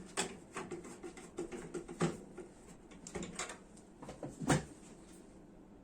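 Scattered light clicks and knocks of hand work on the open microwave oven's metal parts, the loudest knock about four and a half seconds in.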